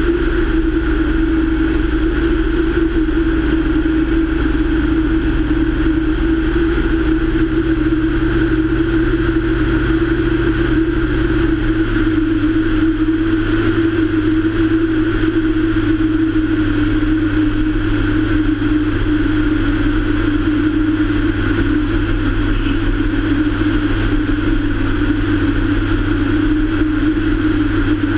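A light single-engine propeller plane's engine and propeller droning steadily in flight, heard from a camera mounted outside the aircraft. A steady hum sits over the rush of air, and the deepest part of the sound shifts once about twelve seconds in.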